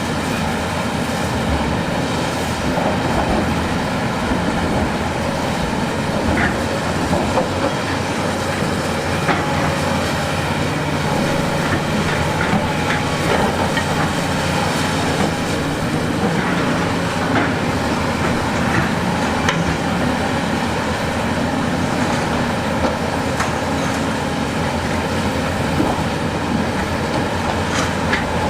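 Heavy diesel construction machinery running steadily under load, with scattered short clanks and knocks of metal and rock.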